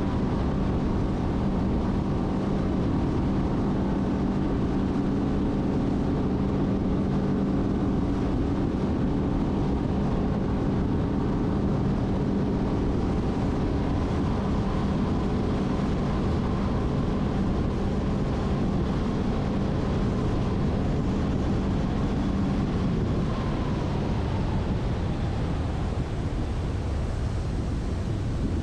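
Bass boat's outboard motor running at speed, a steady engine note over wind and water rush. About three quarters of the way through, the engine note drops and fades as the boat throttles back.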